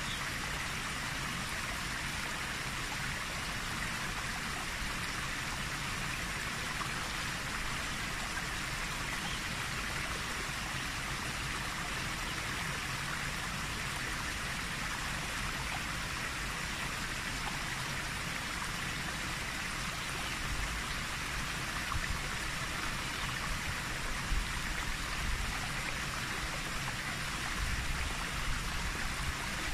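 A steady, even hiss with the character of light rain or running water. A few low bumps, like wind or handling on the microphone, come through in the last ten seconds.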